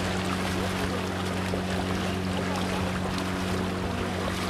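A boat's engine runs at a steady pitch, with wind and water noise over it.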